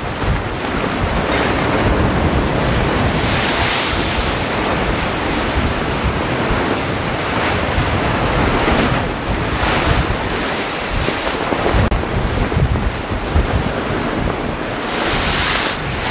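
Rough sea surf breaking and washing against a rocky shore, with a hissing surge of white water about every six seconds, three in all. Wind buffets the microphone with a low rumble throughout.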